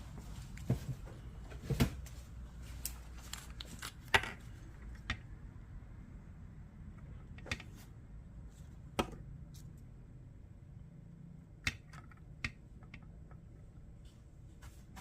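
Scattered small clicks and taps of hands and tools working on a surf-casting rod's tip-top guide, with sharper ones about two, four and nine seconds in.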